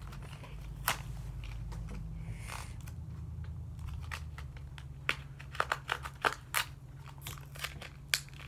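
A dull serrated knife cutting and prying at tackle packaging: irregular clicks and crackles of the package, with a few sharper snaps in the second half, over a steady low hum.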